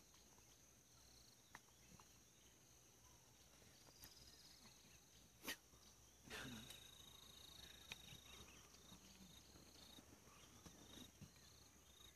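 Near silence: a faint, steady high insect drone, with a few faint clicks and one brief louder sound about halfway through.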